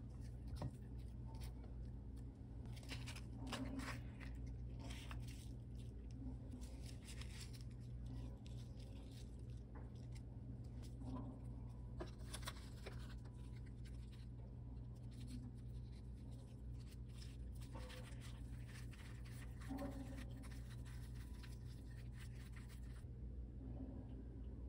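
Faint rustling and light taps of gloved hands laying perilla leaves, enoki mushrooms and chives onto a raw beef slice on a ceramic plate and rolling it up, over a steady low hum.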